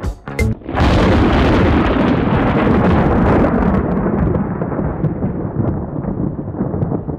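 Thunder: a loud crack just under a second in, then a long rolling rumble that slowly loses its upper range.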